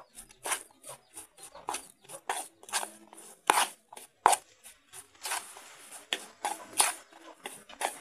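A spoon stirring and kneading a damp mash of rice and rice bran in a stainless steel bowl: irregular scrapes and clinks of the spoon against the metal, a few each second.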